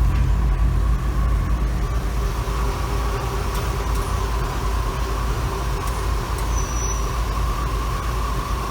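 Onboard air-ride compressors running steadily, pumping up the air-suspension tank: a constant electric-motor hum with a steady whine.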